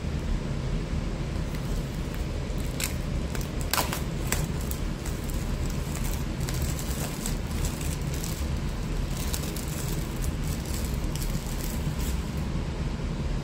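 Clear cellophane shrink-wrap crinkling as it is peeled off a boxed card deck and crumpled in the hand: a run of short crackles, loudest about four seconds in, over a steady low hum.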